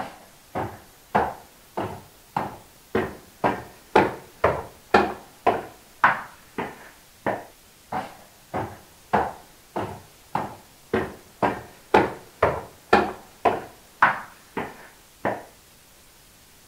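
Footsteps climbing a stairwell at a steady pace of about two steps a second, each step a sharp knock with a short echo, some steps louder than others. They stop about a second and a half before the end.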